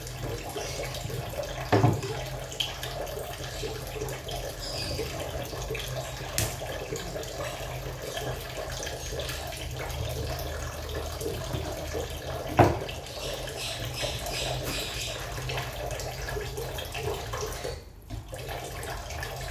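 Kitchen tap running steadily into a pot of water in a stainless-steel sink. Two sharp knocks, about two seconds in and again near the middle, come from the knife striking the plastic cutting board as the tuna is cut. The running water drops out briefly near the end.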